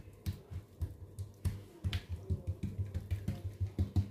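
Oiled palms patting and slapping a thin sheet of msemen dough against a countertop to stretch it out: a run of soft, wet slaps, about three or four a second.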